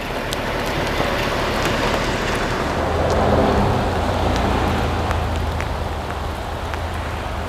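Rain mixed with snow falling, a steady rushing noise with scattered small drop clicks that swells about three seconds in, over a low rumble.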